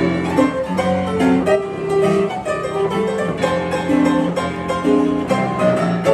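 Upright piano being played live: a lively tune of quick, short notes over a lower accompaniment.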